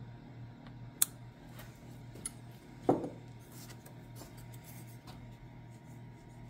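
A sharp click, then a smaller one, and a louder, duller knock about three seconds in: small things handled on a wooden workbench, over a steady low hum.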